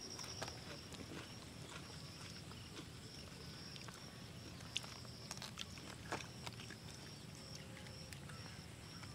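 Faint outdoor background with a steady high-pitched hum and scattered light clicks.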